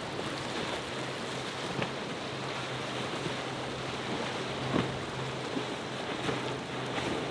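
Choppy surf and wash, with wind on the microphone, under the steady low drone of a Boston Whaler 420 Outrage's outboard engines as the boat runs through the inlet waves. A couple of brief slaps, about two and five seconds in.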